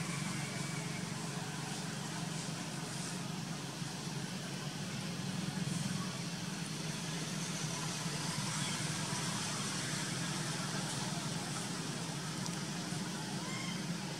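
Steady background hum and hiss, with a few faint short chirps.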